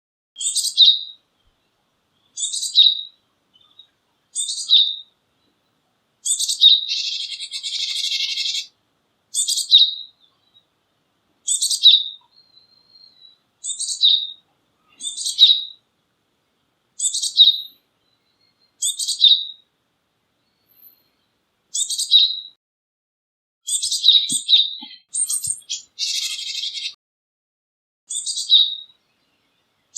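Japanese tit singing: short, high two-part phrases repeated about every two seconds. Twice, a longer harsh buzzy call of about two seconds comes in among them.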